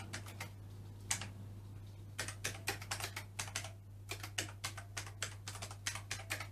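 Keys being pressed on a ZX Spectrum +2's keyboard: irregular clicks, a few at first, then quick runs of keystrokes from about two seconds in as a short BASIC program is typed, over a steady low hum.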